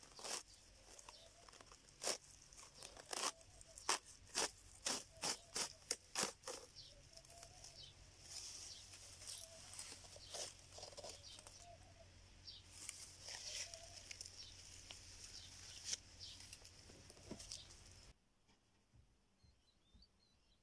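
Dry palm fibre being torn from a palm trunk by hand: a quick run of sharp crackling rips for the first six seconds or so, then a longer rustling as a wad of fibre is pulled away. Near the end it drops suddenly to near quiet.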